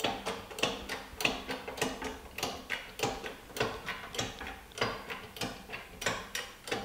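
Repeated light metallic taps, about two or three a second, as a taper roller bearing cone is tapped down an electric motor's armature shaft through an old box spanner used as a drift tube.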